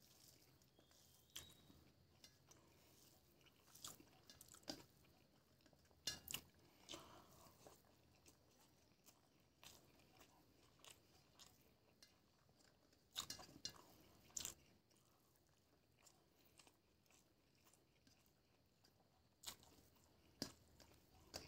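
Quiet eating sounds by hand: chewing and fingers mixing rice with egg curry on a steel plate, heard as scattered soft wet clicks and crackles a second or more apart.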